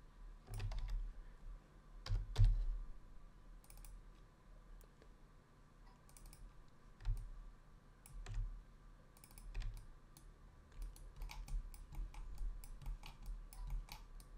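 Computer keyboard keys and mouse buttons clicking irregularly, with soft low thumps between them, as the software is worked by hand.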